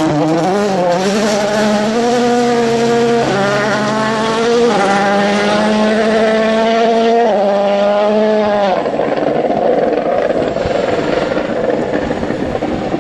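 Rally car engine running hard at full throttle through several gear changes, the pitch stepping at each shift. About nine seconds in the engine note drops away, leaving a rushing noise.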